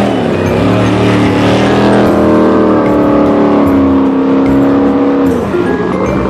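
Engine sound revving, its pitch climbing slowly and then dipping toward the end.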